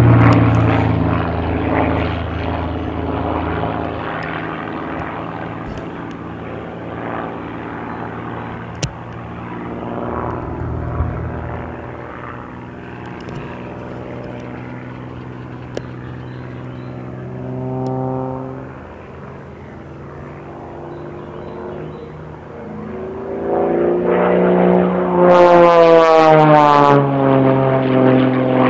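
Extra aerobatic monoplane's piston engine and propeller droning during its aerobatic routine. The sound fades through the middle, swells briefly, then grows loud again near the end, where the pitch slides down.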